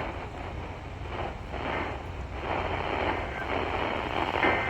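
Weather radio receiver hissing with static, over a steady low hum and cut off above a narrow radio band. A short faint tone is heard near the end.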